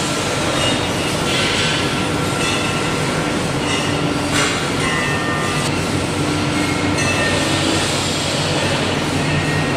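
Steady factory machinery din with a low hum, with brief high-pitched metallic squeaks coming and going.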